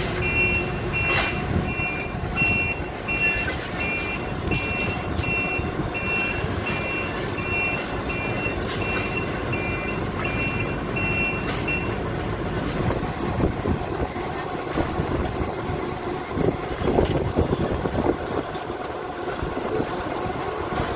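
A truck's reversing alarm beeps steadily, about three beeps every two seconds, over a running diesel engine, and stops about twelve seconds in. The engine keeps running after that, with a few scattered knocks.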